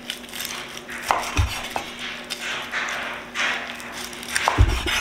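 Chef's knife slicing through smoked chicken breast with crispy skin, making a series of short crunches, with the blade knocking twice on a wooden cutting board.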